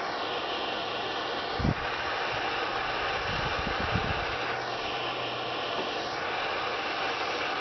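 Small propane torch hissing steadily while heating body solder, its tone shifting now and then as the flame is moved. There is a single knock about a second and a half in and a few soft knocks a little later.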